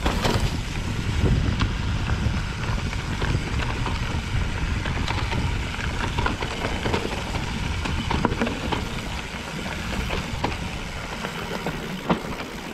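Full-suspension mountain bike (2022 Trek Top Fuel 9.8) riding down a rocky trail: a steady low rumble of tyres over rock and dirt, broken by frequent sharp clicks and rattles from the chain and frame.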